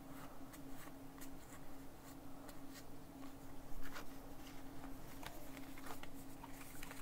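Faint rustling and light clicks of Pokémon trading cards being handled and flipped through, over a steady low hum.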